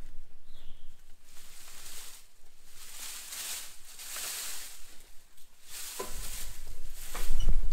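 Dry cedar limbs rustling and scraping as branches are grabbed and dragged out of a brush pile, with footsteps; near the end the branches crackle and snap, with a low thump.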